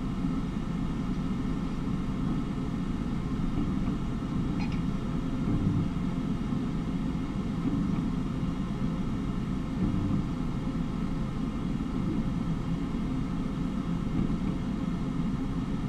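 Steady low rumbling hum of a visual field perimeter and the exam room while a test runs, with one faint tick about four and a half seconds in.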